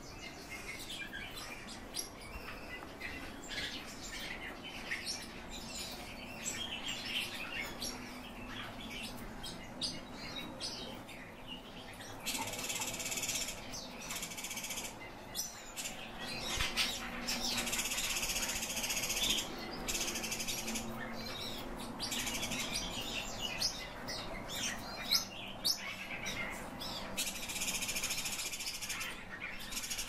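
Pekin robins (red-billed leiothrix) calling with many short high chirps, followed in the second half by several denser passages of rapid high chirping or warbling, each lasting two or three seconds.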